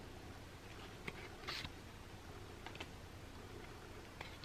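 Playing cards being handled: a few faint clicks and taps, with one short swish about a second and a half in as a card is slid off the front of the deck.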